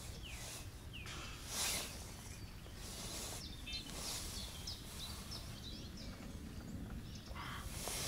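Outdoor ambience: a steady low rumble with a few short rushes of hiss, the loudest about a second and a half in, and small birds chirping faintly now and then.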